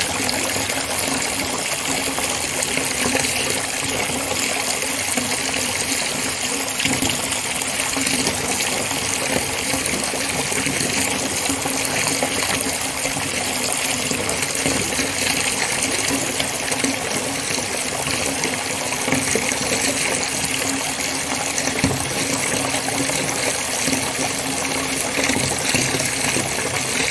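Water pouring in a steady, unbroken stream, splashing and gushing without let-up.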